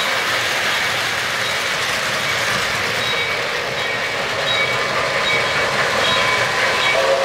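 O-gauge model trains running on three-rail track: a steady rolling rumble and rattle of wheels on rails as a freight train passes close by. A whistle starts just before the end.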